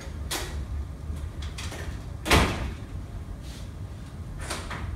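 A stage door shutting with one loud thud about two seconds in, with a few lighter knocks around it.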